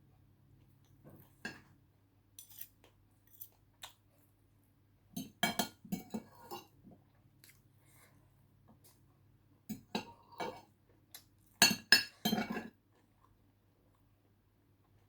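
Cutlery clinking and scraping against a dish in three short clusters of clicks, about five, ten and twelve seconds in, the last the loudest.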